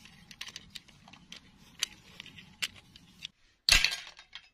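Small clicks and light rustling from a plastic doll being handled over grass. A little over three seconds in comes a single loud sudden hit that dies away within half a second.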